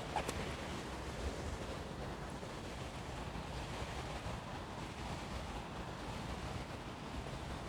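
Steady outdoor background noise: an even rushing with a low rumble, and one brief click just after the start.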